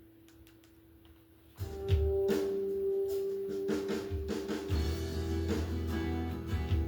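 Backing track kicks in suddenly about a second and a half in: drum kit and bass with guitar, a band groove to play along to. Before it, only a few faint clicks over a low steady tone.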